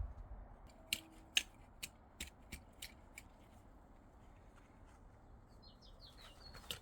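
A garden tool working soil while earthing up potato plants: about seven sharp clicks and taps, roughly every half second, between one and three seconds in. A few faint, high, short chirps come near the end.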